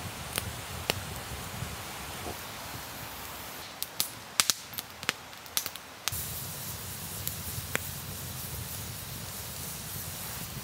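Wood campfire crackling: scattered sharp pops, with a quick run of loud pops about four to six seconds in, over a steady outdoor hiss.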